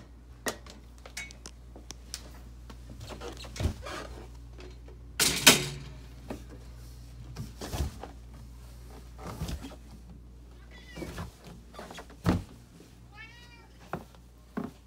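Footsteps in sneakers thudding down carpeted stairs, with one louder thump about five seconds in. Near the end a cat meows several short times.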